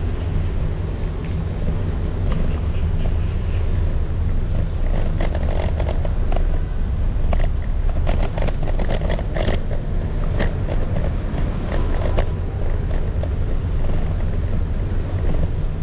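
Riding an electric scooter over wet paving stones: a steady low rumble of wind and motion noise with a low hum, and scattered clicks and rattles that are thickest in the middle.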